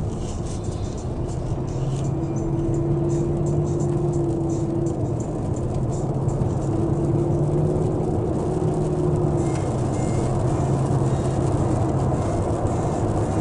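Cabin sound of a 2005 Jaguar XJ8 L under way: the V8 engine running and road noise, with a low, steady drone that drifts slightly in pitch.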